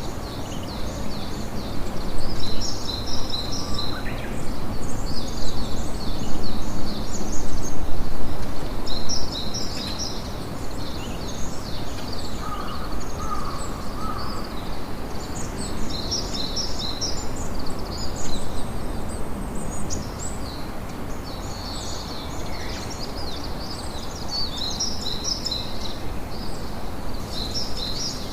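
Campfire crackling and hissing steadily, with birds chirping in short repeated bursts of high calls throughout.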